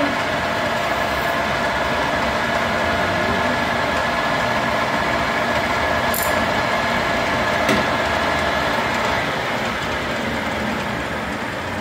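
Warner & Swasey turret lathe running, a steady mechanical din with several constant tones from the spindle and gearing. There is a sharp click about six seconds in and another just before eight, and the sound eases slightly about nine seconds in.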